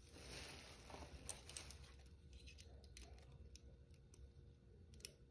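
Faint metal clicks of steel handcuffs being handled, with a short rustle in the first second.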